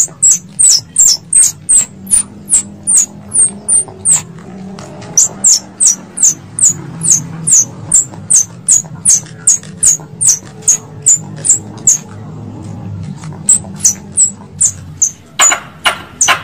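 Tree squirrel (bajing) calls: a run of sharp, high-pitched chips, each dropping in pitch, repeated about three times a second and broken by two short pauses. Near the end a few louder, fuller calls come in, over a faint low hum.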